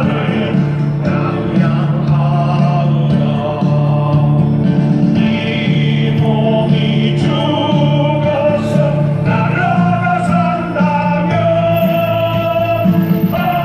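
A song with singing over instrumental backing, with long held sung notes above a steady bass line.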